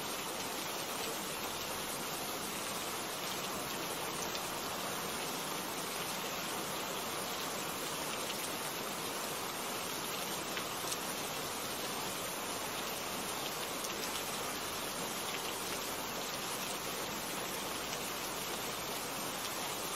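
Steady heavy rain falling, an even hiss with faint taps of single drops here and there.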